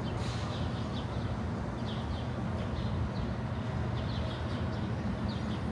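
City street background: a steady low rumble of traffic, with small birds chirping over it in short, high chirps that repeat every half second or so.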